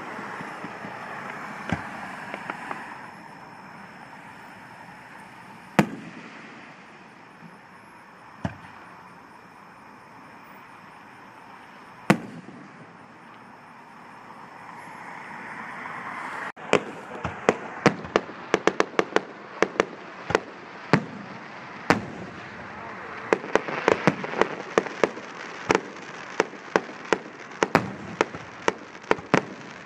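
A fireworks display. A ground fountain hisses at first, and single aerial shells go off with a bang every few seconds. From about halfway on, a rapid barrage of many bangs follows in quick succession.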